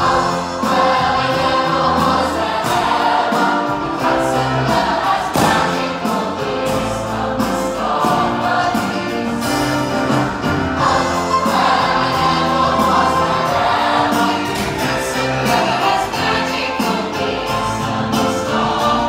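Live musical-theatre number heard from the auditorium: a pit band playing with a steady beat and the cast singing together as a chorus.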